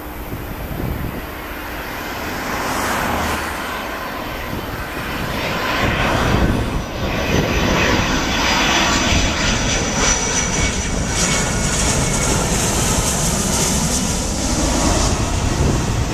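Boeing 757-200 jet airliner on landing approach, its twin Rolls-Royce RB211 turbofans at low approach thrust. The jet rush grows louder over the first six seconds as it comes in low, then stays loud, with a high fan whine about ten seconds in.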